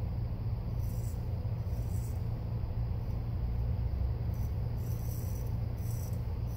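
A 7/8-inch Jerry Stark French-point straight razor scraping through two days of lathered stubble, a few short raspy strokes about a second apart. A steady low hum underlies it throughout.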